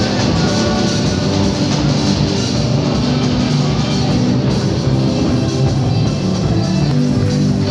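Live band music played loud: guitar over a drum kit, running on without singing.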